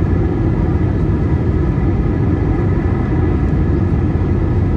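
Airbus A321-231 cabin noise in flight: a steady rush of airflow and engine drone, with a faint steady whine above it.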